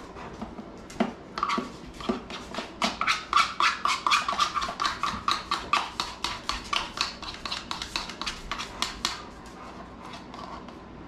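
A Rottweiler panting quickly and evenly, about four breaths a second, with a thin whine running through the middle of it.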